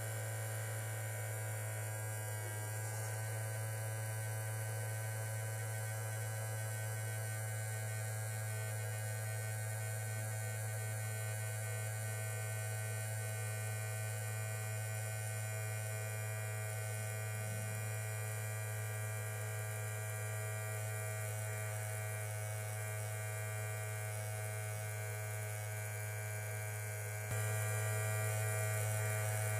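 Small DC motor of a homemade bottle vacuum cleaner running with a steady electric hum, getting a little louder near the end.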